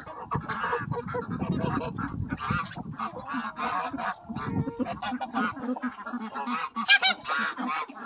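Mixed flock of geese, ducks and chickens calling over one another as they feed, mostly repeated goose honks with quacking, and a louder call about seven seconds in.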